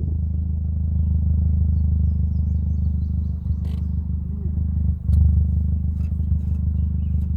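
Heavy wind buffeting on the microphone, a steady low rumble over the sound of an Audi TT 225 roadster on the move, with a few faint ticks.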